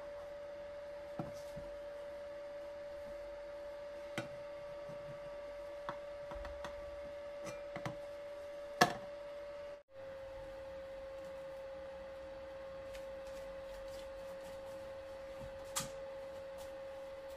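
Steady electrical hum from an electric hotplate, with a few light clinks of a metal baking tray against an aluminium pot; the loudest clink comes a little under halfway through. The hum drops out for an instant just past halfway.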